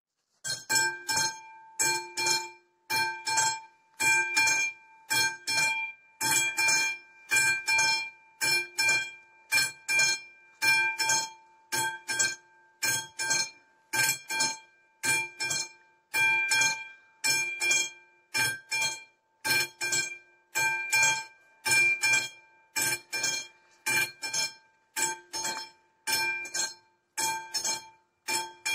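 Level-crossing warning bell of an AŽD 71 crossing (classic type) striking steadily, each strike ringing out, starting about half a second in. It sounds because the crossing has activated to warn of an approaching train.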